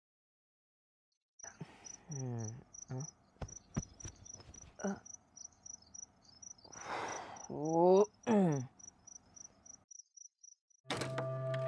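Crickets chirping in a steady rhythm, a few short high chirps a second, with some swooping pitch-sliding sounds and clicks in between. A sustained humming tone starts near the end.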